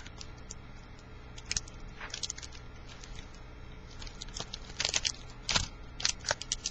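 Crinkling and tearing of a foil trading-card pack being opened, with short clicks and rustles of the cards being handled, heavier near the end.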